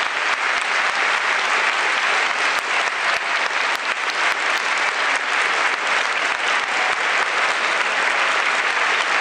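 Large stadium crowd applauding: dense, steady clapping with no break.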